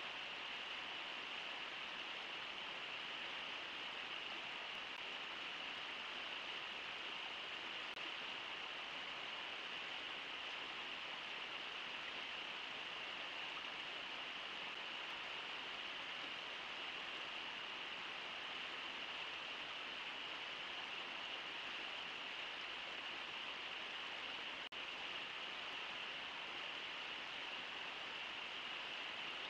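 Steady rushing of the Brooks River, heard through a wildlife live cam's microphone as an even hiss, with one momentary dropout near the end.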